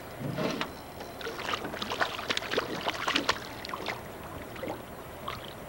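Hooked rainbow trout thrashing at the water's surface beside the boat: a quick, irregular run of splashes over the first four seconds or so, with a couple more near the end.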